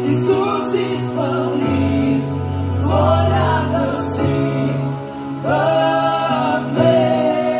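Live worship band playing a slow Christian worship song through a large outdoor PA: several singers hold long, wavering notes over steady sustained keyboard and bass.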